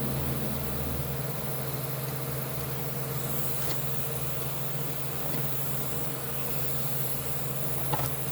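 A steady low mechanical hum from a running machine, with a faint click a few seconds in and a sharper click near the end.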